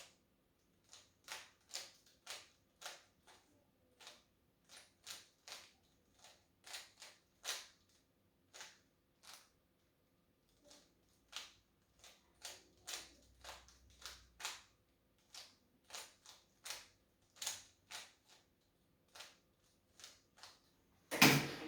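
Plastic Rubik's cube layers being turned by hand, giving irregular sharp clicks about one or two a second during a timed solve. A louder knock comes near the end, as the solve finishes.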